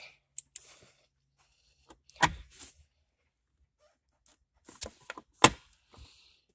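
A few sharp plastic clicks and clunks from a car's centre console as the gear selector's overdrive button and the pull-out ashtray are worked by hand. There is one click about half a second in, a louder clunk around two seconds, and the loudest pair of snaps near the end.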